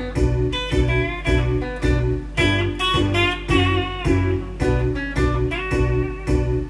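Blues guitar music with a steady beat: a repeating plucked bass line under bright picked and bent lead notes.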